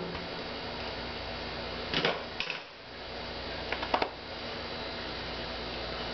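A few short clicks and knocks, a pair about two seconds in and a quick cluster near four seconds in, over a steady background hum.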